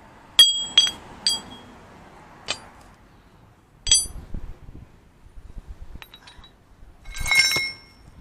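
Loose steel gearbox parts from a Shifeng three-wheeler strike one another with sharp, ringing metallic clinks. There are several single strikes in the first four seconds, then a quick rattling cluster near the end.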